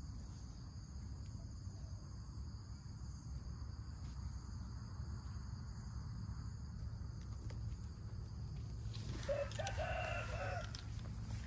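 A rooster crows once, about nine seconds in, a single call lasting a second and a half or so, over a steady low rumble.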